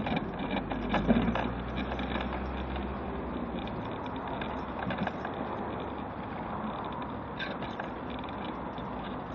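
Mobility scooter riding along a paved pavement: a steady running noise with frequent small clicks and rattles, against road traffic. A low hum comes through in the first three seconds.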